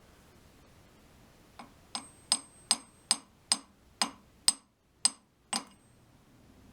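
About ten light taps of a small homemade copper hammer on the adjustable lathe center, each with a short, high metallic ring, nudging the center toward true running. The taps start about a second and a half in and come two or three a second, stopping a little over a second before the end.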